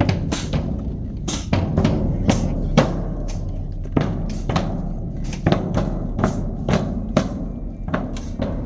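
Marching band drumline playing a percussion-only cadence: sharp snare cracks and rimshots about twice a second over bass drums.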